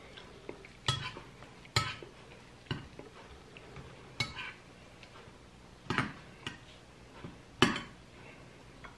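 A metal spoon clinking against a glass soup bowl, about seven sharp, irregular knocks, the loudest near the start and near the end.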